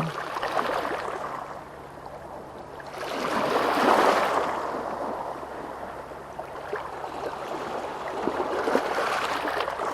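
Sea waves washing in: the surf swells to a peak about four seconds in and falls away, then builds again more gently near the end.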